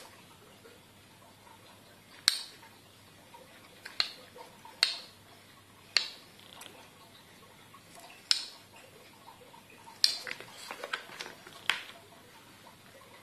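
Sharp clicks and clacks of a watch case press tool and its press dies being handled and set into their plastic storage box. There are about eight separate knocks a second or two apart, with a cluster of lighter clicks near the end.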